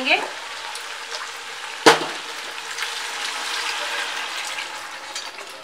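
Mutton stock pouring into a hot pot of fried mutton and ghee, the liquid splashing and sizzling as it hits the fat. There is one sharp clink about two seconds in, and the pouring noise swells and then fades near the end.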